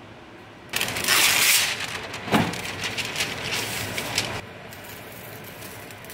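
A lining sheet being pulled off its roll, torn and crinkled into a metal sheet pan: about three and a half seconds of dense crackling, with a sharper crack midway.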